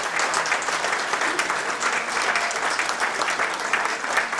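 Audience of several dozen people applauding, many hands clapping steadily.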